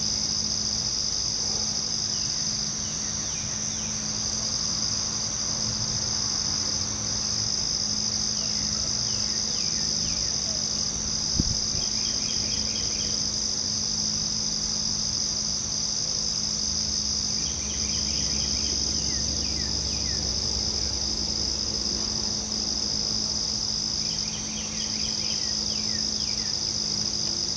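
Steady high-pitched chorus of night insects, with short rapid chirps every several seconds and a faint low hum beneath; one click about eleven seconds in.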